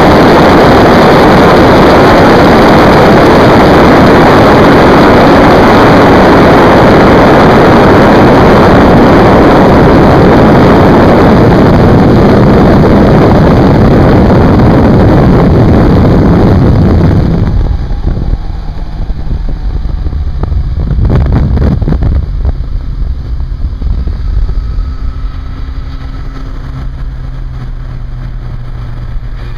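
Loud wind roar on the onboard microphone of a Yamaha YZF1000R Thunderace sportbike at high speed, drowning out its inline-four engine. About two thirds of the way through the wind noise drops away sharply, leaving the engine's lower steady sound, with a brief surge a few seconds later.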